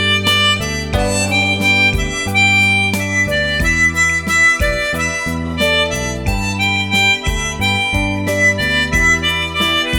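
Harmonica playing a melody in held, sustained notes over a backing track with low bass notes and a steady beat.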